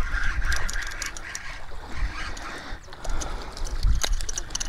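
Wind buffeting the microphone, with short splashes and clicks as a hooked gafftopsail catfish is reeled in and dragged through the shallows onto the sand.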